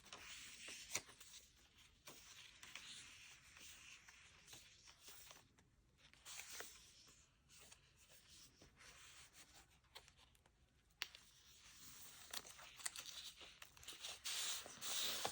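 Faint rustling and soft scraping of paper as the pages and flip-outs of a handmade paper journal are handled and turned, with small clicks and a louder rustle near the end.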